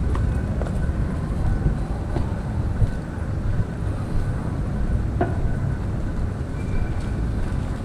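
Steady low rumble of city street noise, with a few faint clicks.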